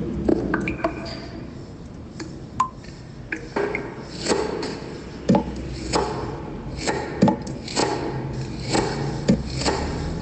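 A series of irregular knocks and clicks, some sharp and close together, over a low background rumble.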